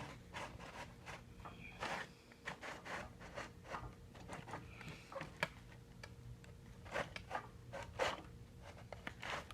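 Old wooden drawer and its contents being handled and rummaged through: irregular small clicks, light knocks and rustling. The drawer's wood is in poor shape, its bottom coming loose.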